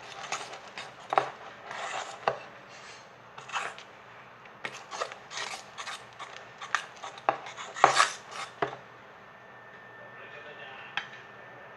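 Slime being mixed: irregular rubbing and scraping with sharp clicks, which stop about nine seconds in.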